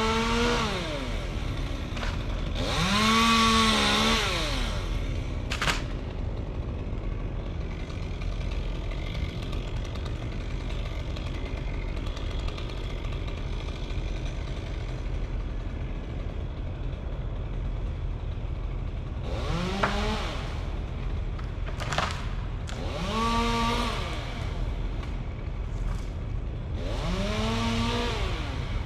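Chainsaw idling and revved up to full throttle in about five short bursts, each rising quickly, holding for about a second and dropping back to idle, with a long stretch of idling in the middle.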